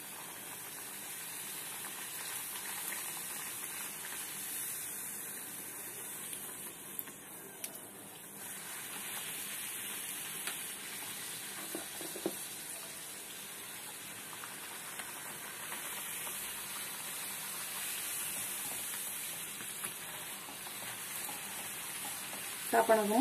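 Bhatura dough deep-frying in hot oil in a steel kadai: a steady sizzle that grows brighter about eight seconds in, with a few light clicks.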